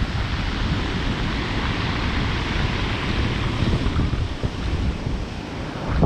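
Sea surf breaking and washing up over a pebble beach in a steady wash, with wind buffeting the microphone.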